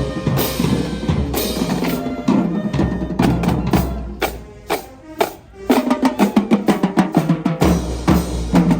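Percussion ensemble playing drums, with sharp strikes over a low bass drum. A quick run of hits thins out to a brief lull about halfway through, then a fast, even pattern of strikes comes back in.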